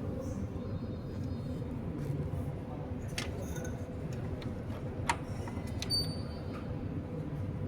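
Ricoh IM 4054 copier running with a steady hum and low rumble, broken by a few sharp clicks and ticks: the noise of a broken main drive gear in the fusing unit.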